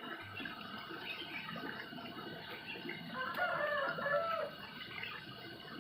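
A rooster crows once, a single long call about three seconds in, over a continuous background of small birds chirping.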